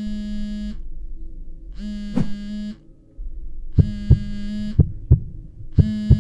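Smartphone buzzing against a hard tabletop on an incoming call: a low, rattly buzz about 0.8 s long, repeating every two seconds. Short dull thumps fall between the buzzes.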